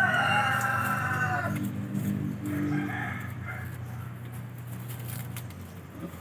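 A rooster crowing once, a long call that drops in pitch at its end, followed by a fainter shorter call about three seconds in. A low steady hum runs underneath and stops near the end.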